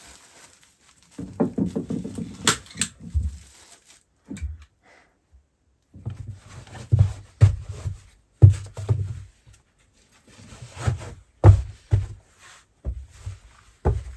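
Boots thudding on wooden floorboards and plank stairs: a string of dull footsteps and knocks in a small timber room. A rustling scuffle comes about a second in.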